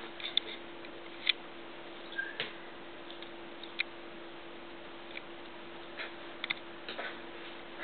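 Scattered light taps and clicks, a dozen or so at uneven intervals, over a steady hum and room noise.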